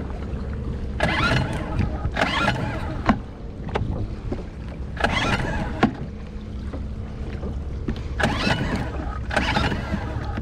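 A 2-horsepower Suzuki outboard being pull-started five times, each pull a short rasp of the recoil starter cord turning the engine over. The first two pulls are about a second apart, then there is a pause, then three more. The engine never catches: it has died at sea and will not start.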